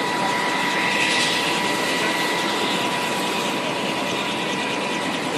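UH-60 Black Hawk helicopter running steadily: a loud, even rush of rotor and turbine noise with a steady high whine over it.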